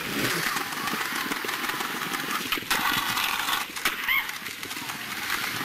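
Skateboard wheels rolling over paving slabs, clacking rhythmically across the joints, with two sharper knocks of the board around the middle.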